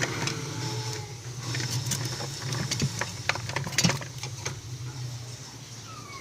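A steady low hum with a run of irregular sharp clicks and knocks in the middle, as of small parts being handled.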